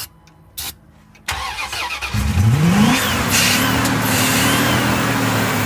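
A few clicks, then a 2001 Dodge Ram 1500's engine cranks on the starter and catches about two seconds in. It revs up with a rising pitch, then runs steadily: a hard start after two years of sitting, with little fuel pressure at the rail and the engine primed with starting fluid.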